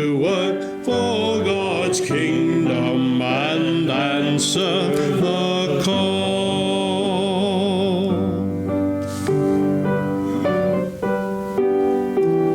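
Congregation singing the closing line of a hymn with keyboard accompaniment. The voices end about eight seconds in, and the keyboard plays on alone.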